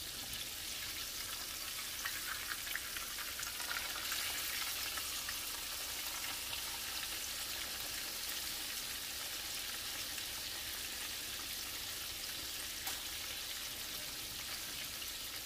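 Flour-dredged turkey pieces deep-frying in hot oil in a cast-iron skillet: a steady sizzling hiss with scattered small crackles.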